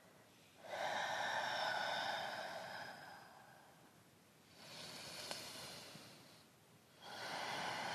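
Slow, deep audible breathing of a person holding a yoga pose: three long breaths, the first about three seconds long, a quieter one in the middle, and a third starting near the end.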